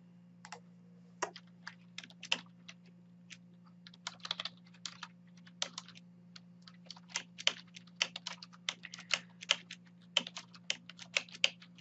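Typing on a computer keyboard: irregular key clicks, a few scattered ones at first, then a busier run of keystrokes from about four seconds in. A faint steady low hum sits underneath.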